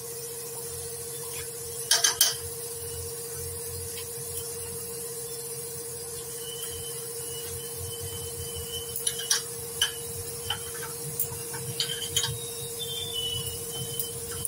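Chunks of raw jackfruit and potato dropped by hand into a kadai of hot water, giving scattered soft splashes and knocks, the loudest about two seconds in, over a steady hum.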